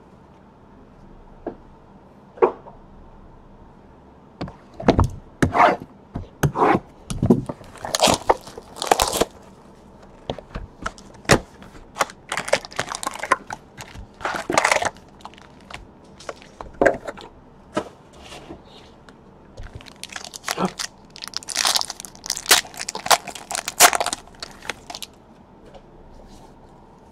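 A trading-card box and its packs being opened by hand: irregular bursts of crinkling, tearing and tapping of cardboard and wrapper. The bursts start a few seconds in and stop shortly before the end.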